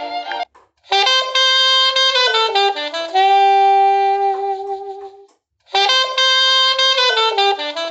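A Huawei Y7 2019 ringtone playing: a short melody of a few notes stepping down to a long held note, a brief pause, then the same phrase starting again. The last note of the previous ringtone cuts off just at the start.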